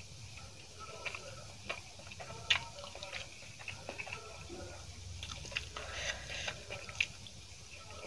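Close-up chewing of a mouthful of rice and spicy paste, with irregular wet mouth clicks and smacks.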